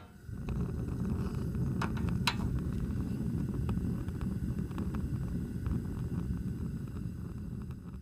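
A steady low rumbling noise with a few faint ticks.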